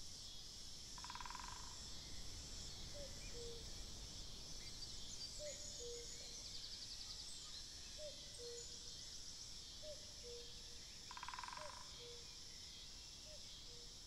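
Woodland ambience: a steady high-pitched buzz of cicadas, with a common cuckoo calling its two-note "cu-ckoo", the second note lower, about six times. A woodpecker drums two short rapid rolls, about a second in and near the end, and small birds chirp now and then.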